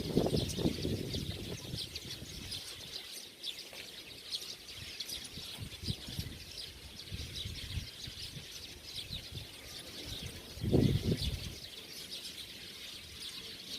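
A flock of small wild birds chattering nonstop, many quick high chirps overlapping. A brief low, loud noise comes about eleven seconds in.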